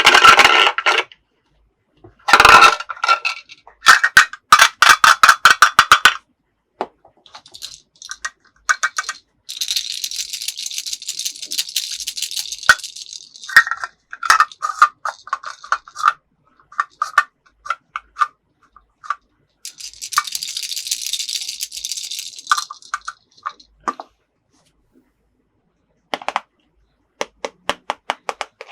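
Plastic toy pieces clicking, tapping and rattling as a toy playset is handled, with a quick run of clicks early on and two stretches of steady hiss.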